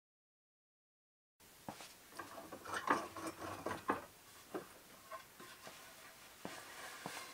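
Silence, then about a second and a half in, a run of small clicks and knocks, densest over the next two seconds and thinning to a few clicks near the end: metal bar clamps being loosened and a glued-up wooden panel lifted out of them.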